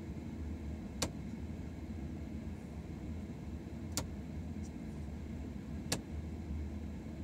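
Car engine idling with a steady low hum, broken by three sharp clicks a couple of seconds apart: the clicking of a Morimoto Elite H7 HID headlight igniter re-striking as the bulb misfires.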